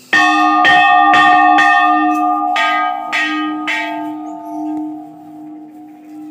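Hanging temple bells struck about seven times in quick succession over the first four seconds, with a slightly different pitch set after the first few strikes, then ringing on and slowly fading.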